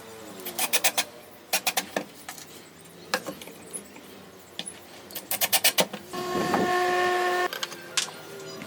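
Woodworking shop sounds: three bursts of quick, sharp taps, then a small power tool runs steadily for about a second and a half near the end.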